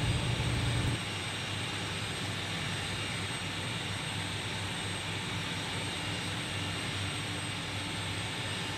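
Steady drone of running machinery in a ship's engine room. A low hum underneath drops away about a second in, and the drone then holds level.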